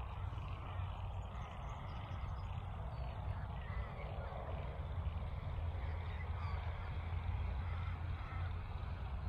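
Wind rumbling on the microphone outdoors, with faint bird calls now and then in the background.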